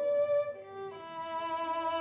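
A bowed string instrument with a round wooden soundboard playing a slow melody. Held notes change pitch a couple of times in the first second, then one note is sustained.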